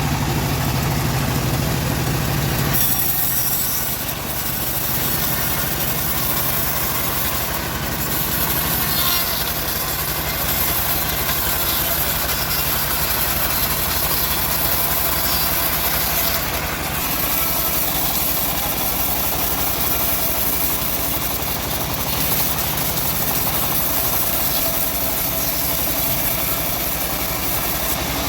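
Engine of a homemade bandsaw sawmill running steadily under load as the mill cuts a mahogany log. Its low note drops and changes about three seconds in.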